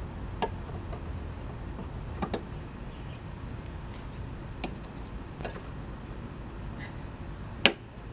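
Sharp clicks of a Toro Personal Pace mower's cutting-height adjuster being worked between notches: five or so spread-out clicks, the last near the end the loudest, over a steady low background rumble.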